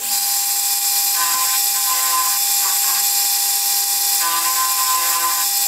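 Metal lathe switched on and running while turning down an ordinary steel bar. It starts suddenly, then holds a steady whine under a loud high hiss, with a higher ringing tone coming in twice.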